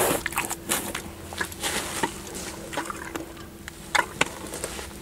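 Lusitano stallion chewing a hand-fed treat, with irregular crunches and clicks.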